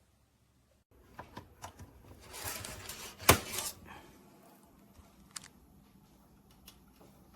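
A run of light clicks and clatter of small hard objects being handled, with one sharp click about three seconds in, after a second of silence.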